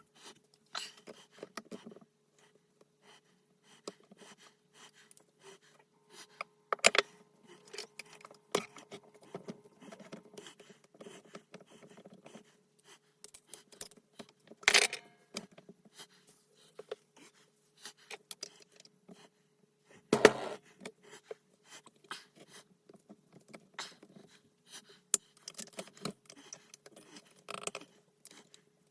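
Metal parts and hand tools of a transfer case teardown clinking and scraping in short, scattered knocks, with a few louder knocks about 7, 15 and 20 seconds in. A faint steady hum runs underneath.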